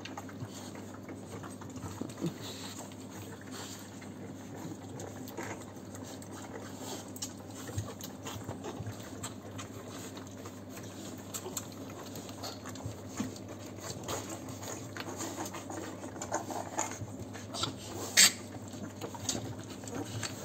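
French Bulldog puppies suckling at their mother's teats: a continuous patter of small wet sucking and smacking clicks, with one sharper click near the end, over a steady low hum.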